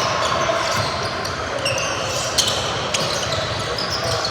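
Basketball game in a gym: a ball bouncing on the court, short high squeaks, and a steady background of crowd chatter in a large echoing hall.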